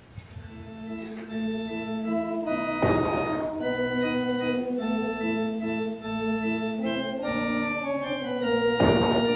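Organ-sounding music with sustained chords that shift from one to the next, swelling up over the first second or so. Two short rushes of noise come through it, about three seconds in and near the end.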